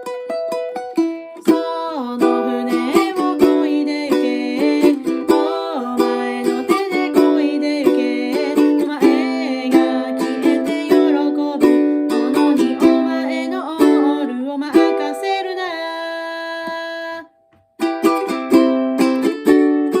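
Ukulele playing: a few single picked notes, then rhythmic strummed chords, which stop abruptly for about half a second near the end before the strumming resumes.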